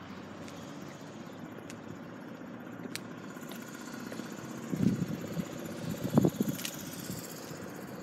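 A car engine running steadily at idle, with a few small clicks and two louder low bumps about five and six seconds in.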